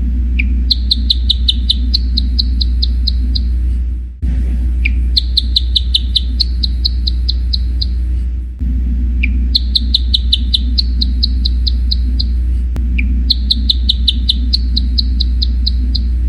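Gecko chirping in four bouts. Each bout is a single lead note followed by a fast run of about a dozen high, clicky chirps lasting about three seconds, over a steady low hum.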